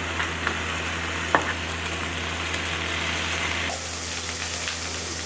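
Pork belly (samgyeopsal) sizzling steadily on a tabletop grill, with a few light clicks in the first second and a half.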